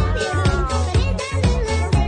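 Dance music with a steady beat of about two hits a second over a repeating bass line.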